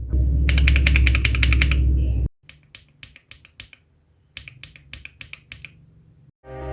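Mechanical keyboard with Akko CS Lavender Purple tactile switches being typed on fast: a dense run of keystrokes for about two seconds, then much quieter, sparser keystrokes in two short runs.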